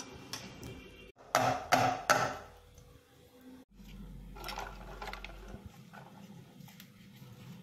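Hands squeezing and swishing roasted raw mango pulp in water in a steel bowl, with a few loud knocks against the bowl between about one and two seconds in.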